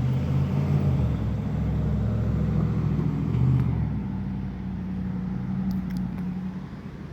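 Car engine running with a steady low hum, easing off about four seconds in and dropping away near the end.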